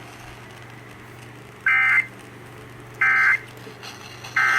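Three short two-tone digital data bursts from NOAA Weather Radio, each about a third of a second long and about 1.4 s apart: the SAME end-of-message code that closes a weather warning. A steady low hum runs underneath.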